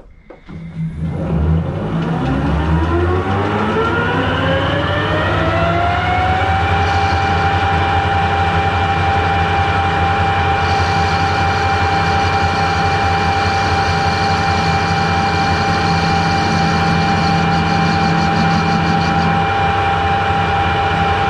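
Harrison lathe starting up: a whine that rises in pitch for about six seconds as the spindle and four-jaw chuck come up to speed, then runs at one steady pitch.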